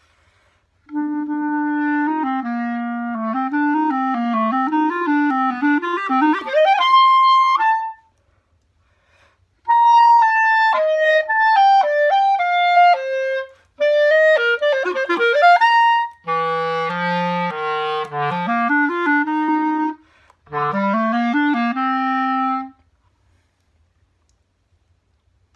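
Solo clarinet playing quick runs and leaps in several phrases, with short breaks between them. It stops a few seconds before the end.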